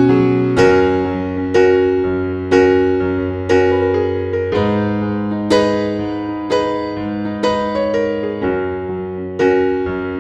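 Slow, gentle electric piano music: soft chords and single notes struck about once a second, each ringing and fading under the next.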